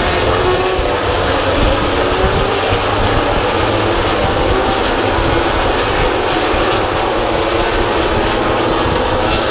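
MotoGP racing motorcycles running round the circuit, several engines heard at once, their pitches slowly rising and falling as they accelerate, shift and pass, over a steady noise.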